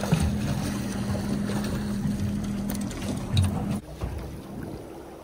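Boat's outboard motor running with a steady hum over wind and water noise, with a low thump about three and a half seconds in. The hum cuts off abruptly near the end, leaving wind and water against the hull.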